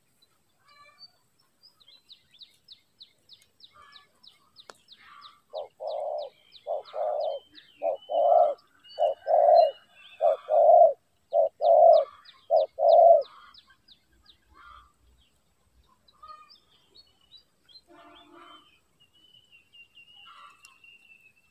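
Spotted dove cooing: about a dozen low coos in short phrases over several seconds. A fast run of thin, high ticking chirps goes on before and alongside the cooing.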